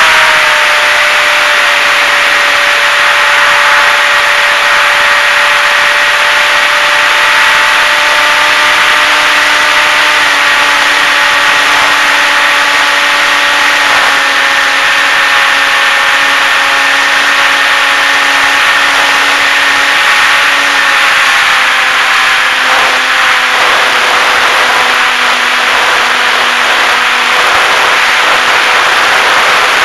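Electric motor and propeller of a HobbyZone Super Cub RC plane whining steadily in flight, heard from the plane's onboard camera over loud wind rush. The pitch drops slightly about two-thirds of the way through.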